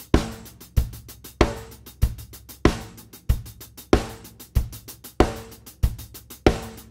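Drum kit playing a simple groove: a steady hi-hat pattern over bass drum and snare alternating on the beats, a big hit about every 0.6 s. The hi-hat strokes are all played at one even volume, with no accents or dynamic contrast.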